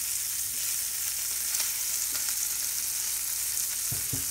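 Small pieces of yellowtail snapper frying hot and fast in butter and oil in a cast iron skillet: a steady sizzle, with a few short knocks near the end.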